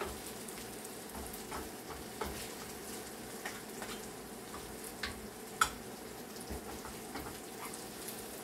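Chicken frying in a pan with a steady sizzle. Scattered clicks and taps run through it, the sharpest about five and a half seconds in.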